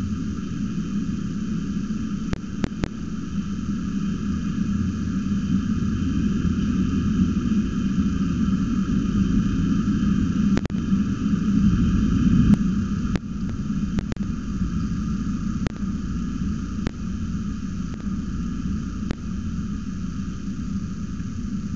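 Thunderstorm heard from inside a wooden falcon nest box: steady rain noise with a constant hiss and a low rumble, broken by scattered sharp ticks. A roll of thunder swells about halfway through, then fades back into the rain.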